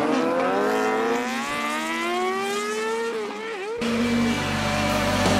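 A sport motorcycle's engine accelerating, its pitch rising steadily for about three and a half seconds. About four seconds in it cuts off abruptly, and a low steady hum follows.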